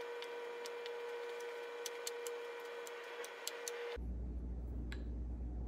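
Granulated sugar being scooped from a metal tin and tipped into a glass on a kitchen scale: scattered light ticks over a steady faint hum. About four seconds in the sound changes abruptly to a low hum with a single click.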